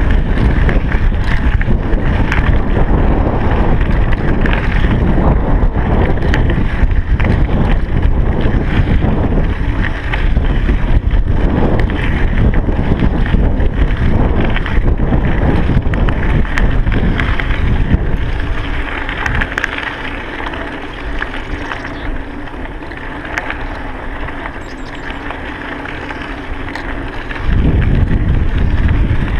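Wind buffeting a chest-mounted GoPro's microphone while riding a bicycle, a steady rumbling rush. About two-thirds of the way through it eases for several seconds, then comes back as loud as before.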